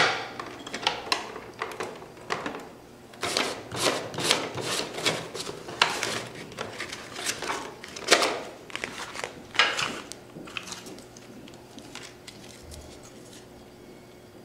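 Hands handling a TSC TTP-247 desktop barcode label printer: a loud plastic click at the very start, then an irregular string of plastic clicks, knocks and paper rustles as a label roll on its supply spindle is fitted into the opened printer. The handling noise dies down after about ten seconds.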